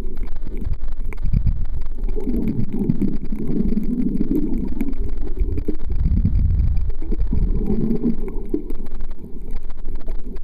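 Muffled underwater sound around a submerged camera: a steady low rumble of moving water with two longer swells of gurgling, one about two seconds in and another past the middle.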